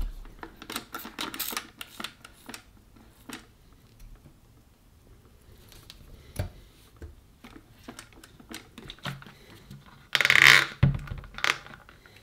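Light clicks and taps from hands handling a small bottle and a circuit board on a silicone work mat, with one louder burst of noise lasting under a second about ten seconds in.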